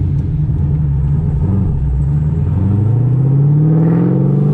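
Supercharged, big-cam LS3 V8 of a 2008 Corvette running low and steady, then rising in pitch from about two seconds in as the car pulls away in first gear without stalling.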